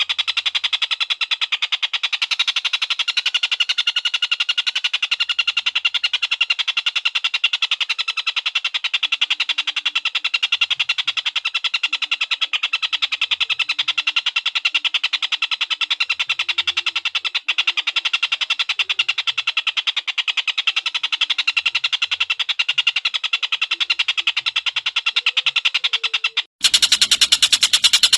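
Javan kingfisher (tengkek buto) giving its long, rapid, rattling call (ngekek) without a break. Near the end it cuts off for an instant, and a louder stretch of the call begins.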